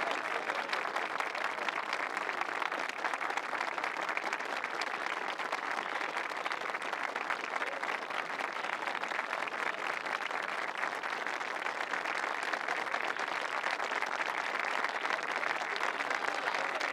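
Crowd applauding: a steady, dense wash of many hands clapping.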